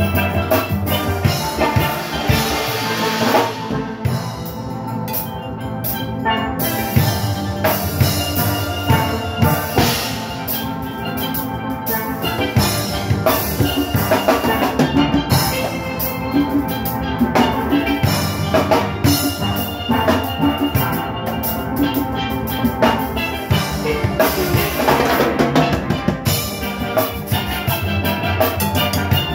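Steel orchestra playing live: steel pans carrying the tune over an engine room of drum kit and timbales keeping a steady dance beat.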